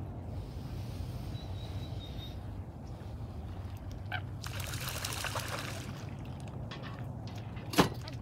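Open-air ambience with a low steady rumble. About halfway through comes a brief burst of splashing, trickling water, and near the end a single sharp click.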